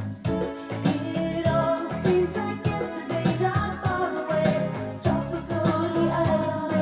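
A pop song with a singing voice over guitar and a bass line, played back through Yamaha NS-E55 speakers driven by an Onkyo CR-N765 receiver.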